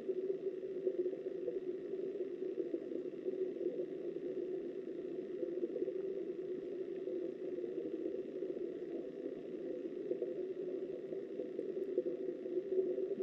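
Flowing river water heard through a submerged camera, a steady muffled rush with no breaks.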